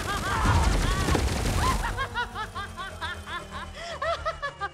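Film soundtrack after a laser-gun fight: a rapid string of short, arching chirp-like tones over a low rumble, spacing out and getting quieter toward the end.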